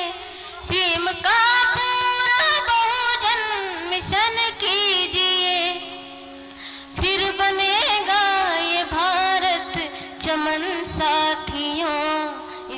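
Hindi song sung by a young boy, his voice moving in wavering, ornamented lines over steady held accompaniment notes and regular percussion hits; the voice pauses briefly about halfway through.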